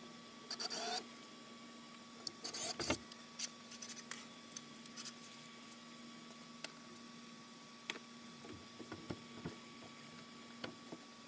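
Handling noises of a pegboard sheet and tools being moved against a door: a few short rustling scrapes in the first few seconds, then scattered light clicks and knocks, over a steady faint hum.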